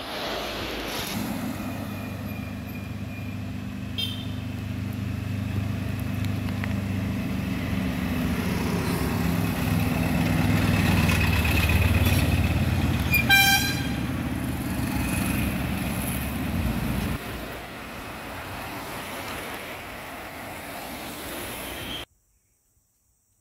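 Passing road traffic: a heavy vehicle's engine running and growing louder as it nears, then fading, with a short horn toot about 13 seconds in and a fainter one about 4 seconds in. The sound cuts off abruptly near the end.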